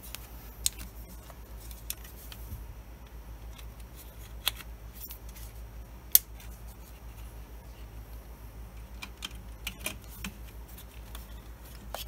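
Scattered light clicks and rattles of hands handling a graphics card and its PCIe power cables in an open metal mining-rig frame, the sharpest click about six seconds in, over a steady low hum.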